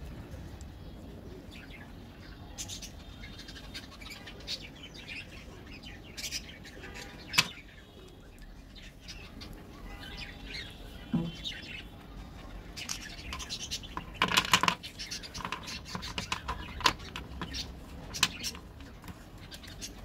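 Small birds chirping in the background, with scattered sharp clicks and snaps as squares of Cadbury Dairy Milk chocolate are broken apart and handled. There is one loud snap about a third of the way in and a quick cluster of clicks about two thirds through.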